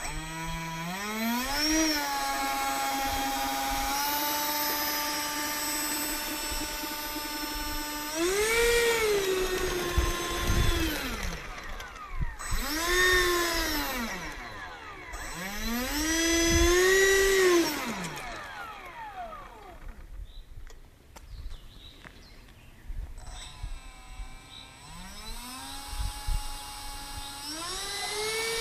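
The 64 mm electric ducted fan of a T-45 Goshawk RC model jet whines as it is throttled on the ground. It spools up and holds a steady pitch, then swings up and down in several quick rises and falls. After a lull it spools up again near the end.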